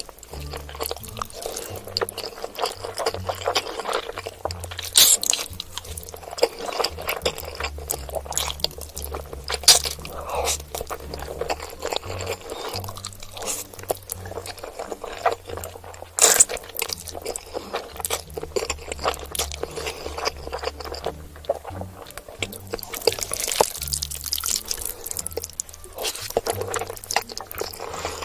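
Close-up eating sounds of noodles: wet slurps, chewing and sharp mouth clicks, over a low background music track.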